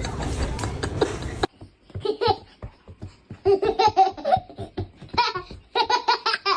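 A baby laughing in bursts of high-pitched giggles and belly laughs. Before it, a loud, even noise cuts off abruptly about a second and a half in.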